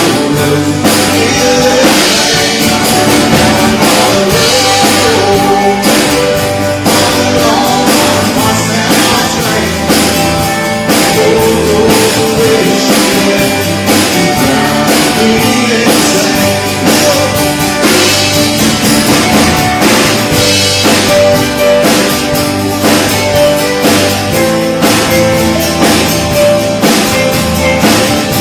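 Live band playing a rock song, with drums and guitar, loud and steady.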